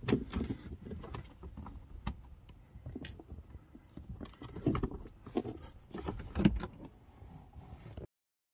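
Hands and a screwdriver working at the plastic trim under a car's dashboard: irregular clicks, taps and rustling, with a few sharper knocks. The sound cuts off suddenly near the end.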